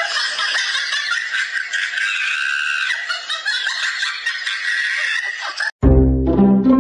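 Paper banknote crinkling and crackling as a cat bites and paws at it, a dense rustle that cuts off sharply almost six seconds in. Comic plucked-string music with deep bass notes then starts.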